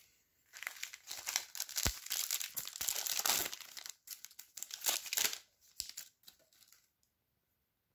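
Plastic wrapper of a Topps Chrome trading card pack crinkling and tearing, a run of rustles lasting about five seconds, followed by a few faint ticks.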